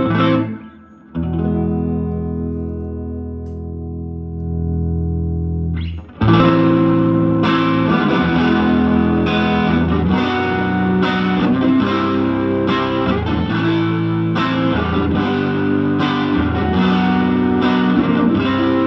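Electric guitar played through a Silvertone 1484 Twin Twelve amplifier. A chord is struck about a second in and left ringing for several seconds. Near six seconds in a steady rhythmic run of chords takes over.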